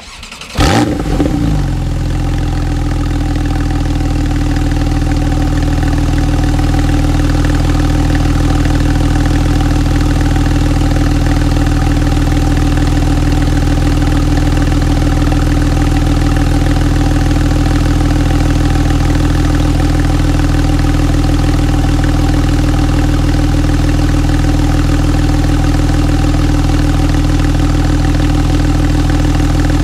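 Porsche 911 Carrera 4's flat-six engine with sports exhaust starting about half a second in, flaring briefly, then settling into a steady idle.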